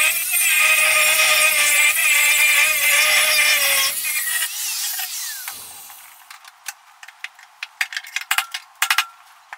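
Angle grinder cutting through the skid steer's sheet-steel cab panel, a steady high whine with a brief break just after the start. About four seconds in it stops and winds down, followed by a string of sharp clicks and knocks.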